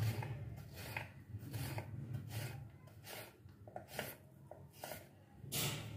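Kitchen knife cutting raw potato slices into thin strips on a wooden cutting board: a series of short, irregular cuts and taps of the blade on the board. A low hum sits underneath during the first half.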